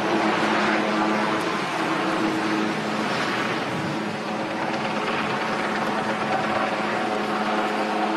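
Motorcade cars driving past one after another, the tyre and engine noise swelling as each goes by, over a steady droning hum.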